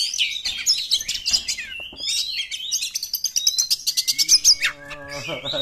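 Oriental magpie-robin (kacer) singing a fast, varied song of high whistles, chattering trills and rapid clicking notes. A lower steady droning tone sounds beneath the song near the end.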